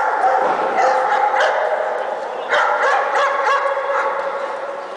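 Caucasian shepherd dogs barking in a large hall, in two loud bouts, one at the start and one about two and a half seconds in, the barks running together.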